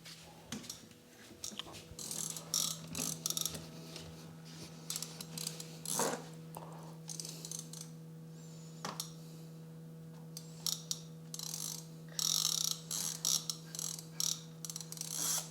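A small mechanism clicking and rattling in irregular bursts over a steady electrical hum.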